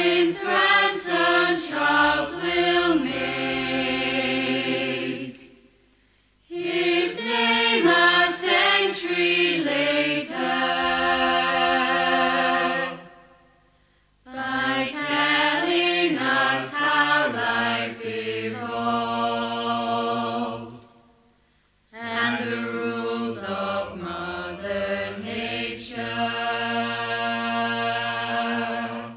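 A chorus of voices singing in four phrases, each moving through quicker notes into a long held chord, with a short silence between phrases.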